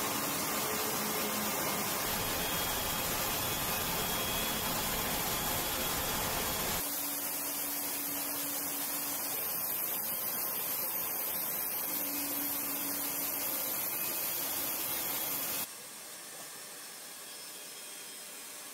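Steady noise of steel-plant machinery, an even hiss with a low hum. It changes abruptly about seven seconds in, losing much of its low end while a faint hum comes and goes, and drops quieter again near the end.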